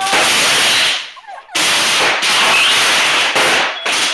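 Firework going off indoors: a loud, continuous rushing hiss that breaks off briefly about a second in, then resumes and runs on until near the end.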